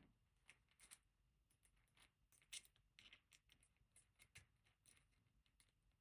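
Near silence broken by faint, scattered small metallic clicks as the key is worked in a small eight-disk disk detainer lock to close it. The strongest click comes about two and a half seconds in.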